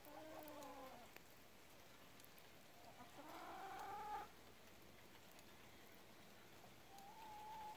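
Three faint, drawn-out animal calls: one at the start, a longer rising one about three seconds in, and a shorter steady one near the end.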